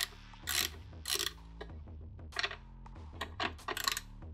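Socket ratchet clicking in short bursts, loosening the nuts on the large cable terminals of a golf cart's 48-volt solenoid.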